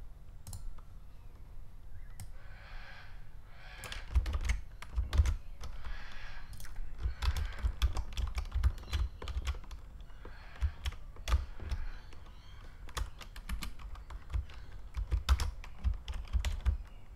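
Computer keyboard typing: irregular key presses, Blender shortcut keys tapped in quick clusters with short pauses.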